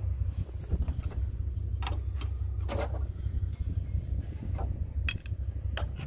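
Scattered light metallic clinks and knocks of hand tools and parts being handled during radiator removal, about six in all, over a steady low rumble.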